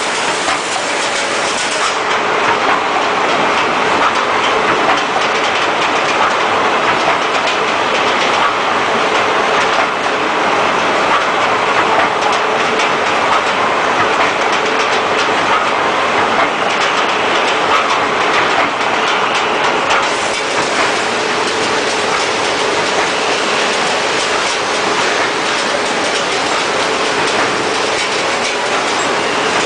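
Automatic packaging machine running continuously, a steady mechanical clatter of many fast clicks over a faint hum.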